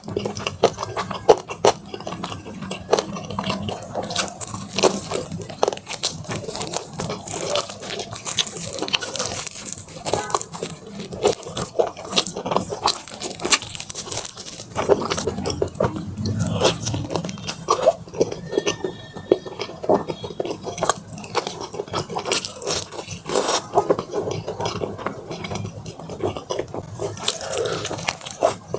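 Crunching and chewing of crispy Korean fried chicken drumsticks: many sharp crunches of the fried coating in quick succession.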